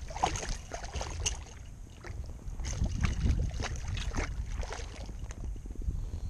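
A hooked redfish thrashing and splashing at the surface beside a kayak as it is landed by hand: irregular splashes and knocks over a low wind rumble on the microphone.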